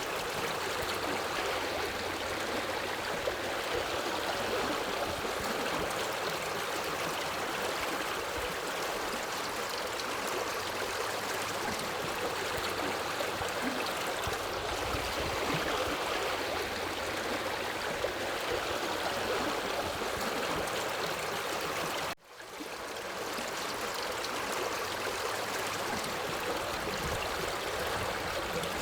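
Forest river water running steadily over rocks, an even gurgling flow. About three quarters of the way through it cuts out abruptly for a moment and fades back in.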